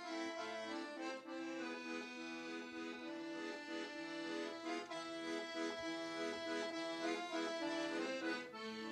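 Solo Paolo Soprani piano accordion playing a tune, with a held chord under a moving melody.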